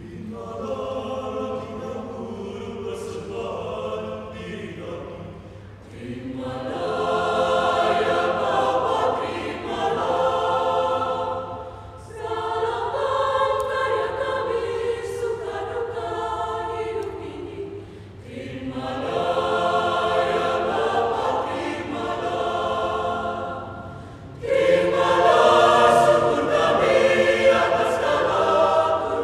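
Mixed choir of women's and men's voices singing, in phrases of about six seconds with brief breaths between them, and a louder entry near the end.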